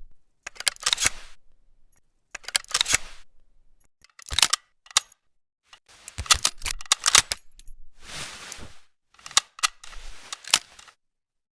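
Double-barrel shotgun sound effects: a series of sharp clicks and clacks in clusters about a second apart, with a short scraping noise a little past the middle.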